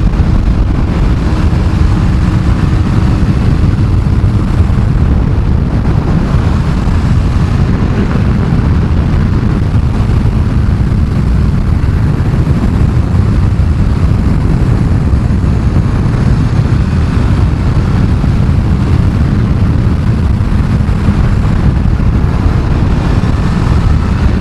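Steady wind rush over a helmet-mounted action camera on a motorcycle riding at road speed, with the engine running beneath it.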